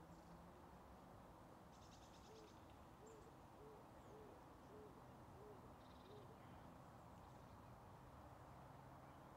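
Near silence outdoors, broken by a distant bird giving a run of about seven soft, evenly spaced hooting notes, with a brief high insect buzz just before them.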